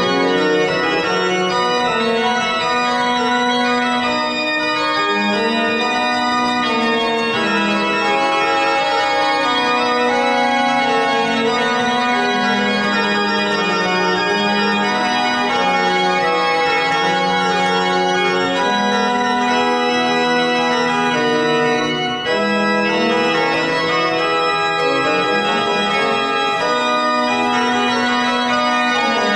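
Historic Bonifazi pipe organ playing a slow polyphonic chorale setting: several voices of long held notes moving in steps, with a brief break in the sound about three-quarters of the way through.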